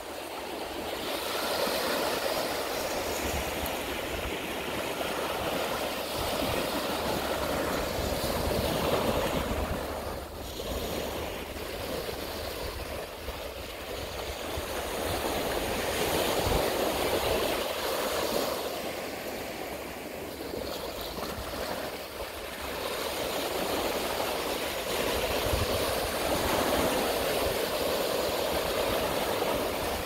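Ocean waves breaking and washing onto a beach: a steady surf noise that swells and eases about three times, every eight to ten seconds.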